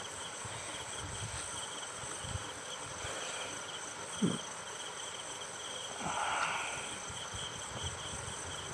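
Insects chirping steadily in the background, with a brief soft rustle about six seconds in.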